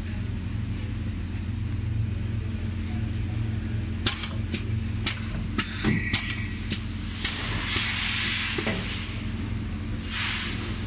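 Pneumatic assembly machine cycling over a steady low hum: a quick run of sharp mechanical clacks about four seconds in, a short tone, then two spells of compressed-air hiss from the cylinders and valves.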